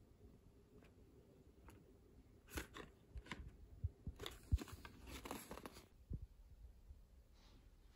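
Faint rustling and clicking of a cardboard box handled and turned over in the hands, a run of small crinkles and taps for about three seconds midway through, ending with a soft thud.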